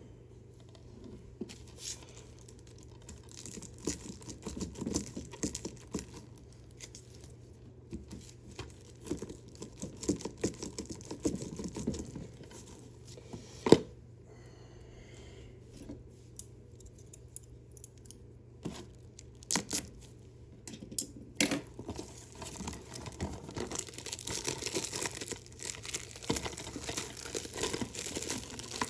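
Plastic shrink wrap being torn and peeled off a DVD case, with irregular crinkling and crackling. There is one sharp click about halfway through, and the crinkling grows denser near the end.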